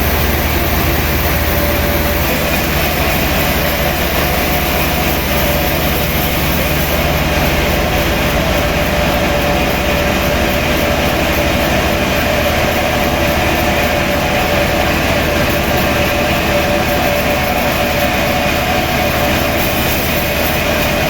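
Sawmill machinery running steadily, a loud continuous noise with a steady whine, typical of a large saw cutting through a log.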